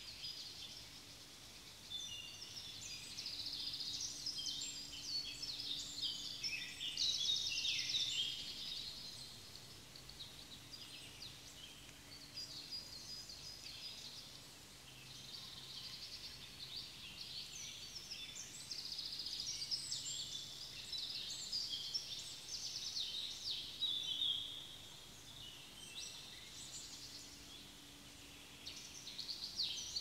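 Outdoor natural ambience of high-pitched chirping and trilling from small wild creatures, coming in overlapping bouts of a few seconds with short quieter gaps.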